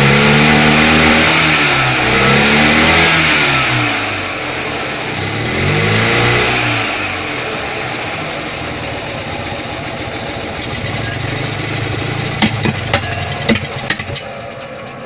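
Invacar's four-stroke engine being revved up and down, then running on, with a quick string of sharp pops about three-quarters of the way through. The pops are backfires through the exhaust that throw out sparks, which the owner puts down to retarded ignition timing, sparking too late.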